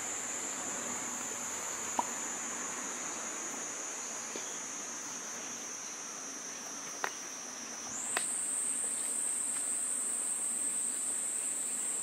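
Crickets trilling steadily at a high pitch. The pitch steps up slightly about eight seconds in, and a few faint clicks come through.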